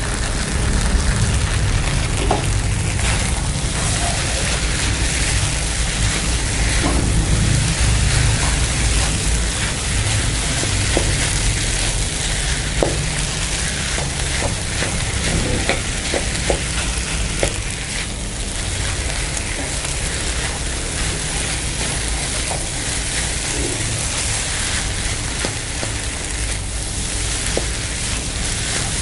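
Rice stir-frying in a wok, sizzling steadily as a spatula turns and scrapes it, with scattered short knocks of the spatula against the pan.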